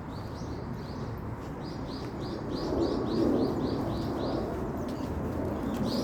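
A songbird calling a rapid series of short, repeated high notes, about three a second, that stop near the end with one last note. Underneath is a steady low rumble of outdoor noise that grows louder about halfway through.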